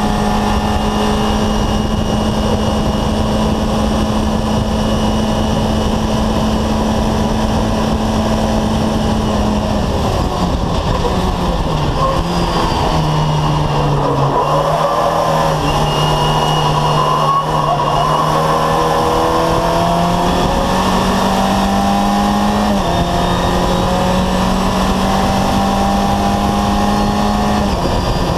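VW Fun Cup race car's engine heard from inside the cockpit at racing speed, with wind and road noise. The note holds steady at high revs, then drops about ten seconds in as the car slows. It climbs back and falls in two sudden steps later on, the pattern of upshifts.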